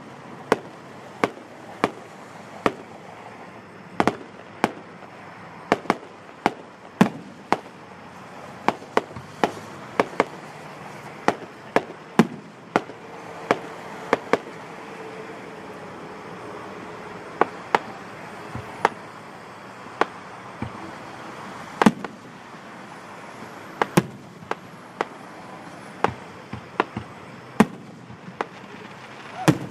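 Aerial fireworks shells bursting overhead in an irregular run of sharp bangs, often two or three a second, with a short lull about halfway through.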